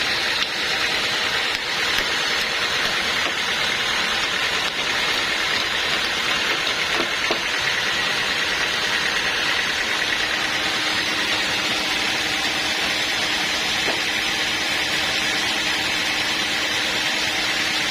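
Sawmill machinery running steadily: an even, unbroken engine-driven mechanical noise with faint steady tones.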